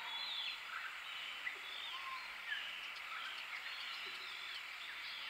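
Woodland birdsong: several small birds chirping and whistling, many short rising and falling calls overlapping, over a steady background hiss.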